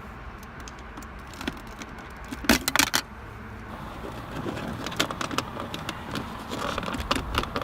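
Scattered clicks and knocks of tools and parts being handled while the shifter is being taken out, with the loudest cluster about two and a half seconds in and more sharp clicks near the end.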